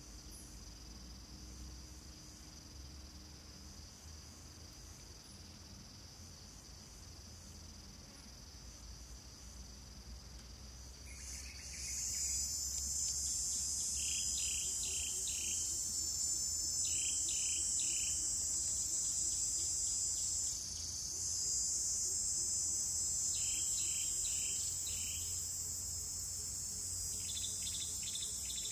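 Steady high-pitched insect chorus, cricket- or cicada-like, that swells much louder about eleven seconds in. Short groups of three or four chirps sound over it several times in the second half.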